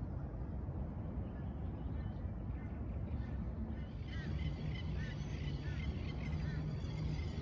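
Outdoor ambience with a steady low rumble. From about four seconds in, a bird calls again and again in short chirps.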